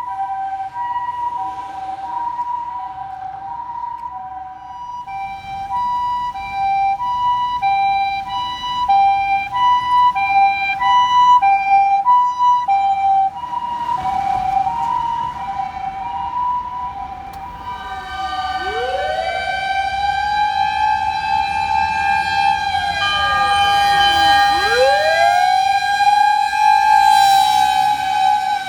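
Ambulance two-tone electronic siren alternating between a high and a low note about once a second, from Nissan Paramedic ambulances on an emergency run. About two-thirds of the way in it gives way to a fire pump truck's mechanical motor siren, winding up to a held wail and winding back down, twice, over the truck's engine.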